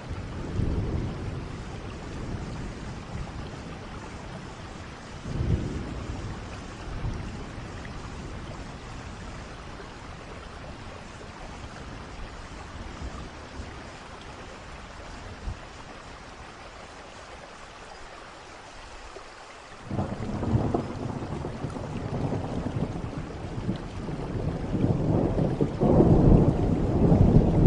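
Steady rain falling, with rolling thunder: low rumbles near the start and about five seconds in, then a thunderclap breaking about twenty seconds in that rolls on and grows loudest near the end.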